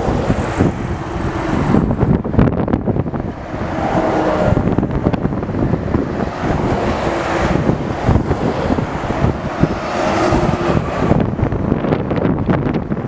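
A convoy of heavy trucks driving past one after another: diesel engines running and tyres on the road, each truck's engine note rising and fading as it goes by.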